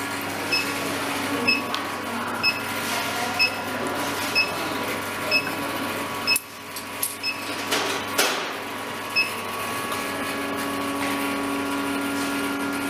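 Small gold-melting induction furnace running with a steady hum made of several fixed tones. A short, high beep sounds about once a second and stops about nine seconds in. A few sharp knocks come around the middle.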